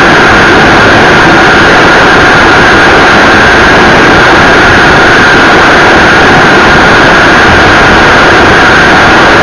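Kerosene-fuelled turbine of a Viper RC jet heard from the onboard camera in flight: a steady high whine over a loud, unchanging rush of noise.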